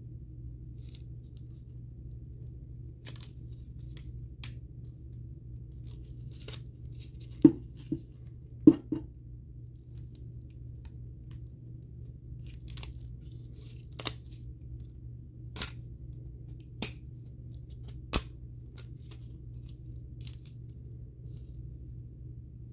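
Scattered sharp snaps and clicks as a blade cuts and pries a thin glued plastic sheet off the aluminium plate of a 2009 Apple keyboard, the loudest two coming a third of the way through. A steady low hum runs underneath.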